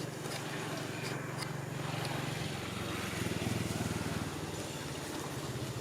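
A small engine running steadily with a low hum, growing a little louder and changing tone about three seconds in.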